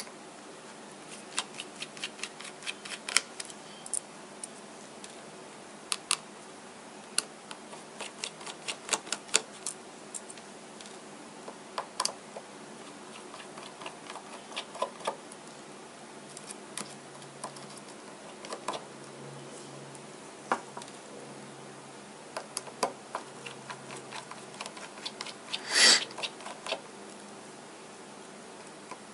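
Small screwdriver clicking and ticking on the screws and plastic midframe of an opened Nexus 5 smartphone as it is unscrewed, in irregular light clicks, with one louder clatter near the end.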